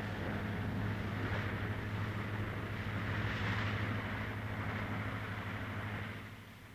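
Cruiser driven by an outboard motor running on the water, the engine and rushing noise swelling, then fading away near the end.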